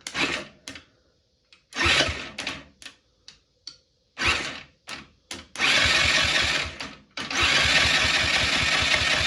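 GY6 go-kart engine cranked by its electric starter: a few short tries, then two long runs of cranking with a steady, even beat, without catching. The owner traces the no-start to tight valves pushing compression back out the intake.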